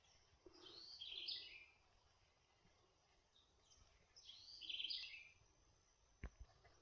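A songbird singing two short, similar chirping phrases about three seconds apart, faint against a quiet outdoor background, with a single sharp click about six seconds in.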